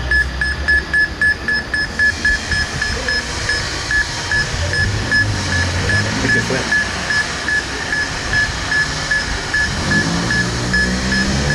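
Electronic beeping from an electromagnetic-field detector: a steady high beep repeating about four times a second, slowing to about two and a half a second after the first two seconds, over a low rumbling background. Near the end a low sound rises in pitch.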